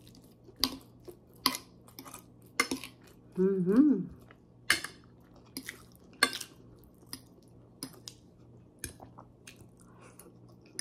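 Metal fork clinking and scraping against a plate while twirling and lifting spaghetti: a string of sharp taps about one a second, with some chewing. A short hummed vocal sound comes a little after the middle.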